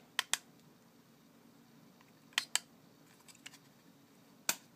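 A few short, sharp small clicks, mostly in pairs: fingers handling the LCD controller panel and its board.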